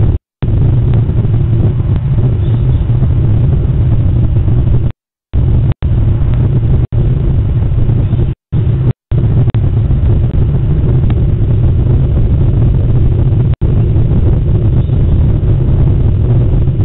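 Loud, steady low rumble on a surveillance camera's audio, broken several times by brief dropouts to dead silence.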